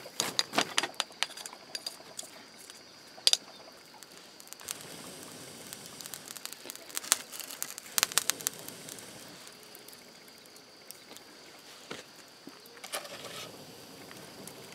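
Wood fire crackling, with scattered sharp snaps and clicks over a faint steady hiss while meat clamped in bamboo sticks grills over the embers.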